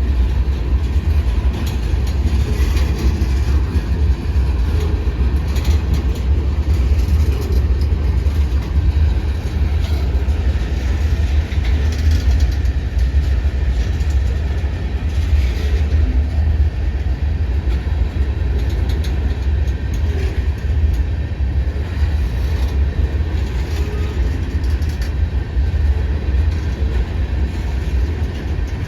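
Freight cars of a long manifest train rolling past, a steady rumble of wheels on rail with a few faint clicks.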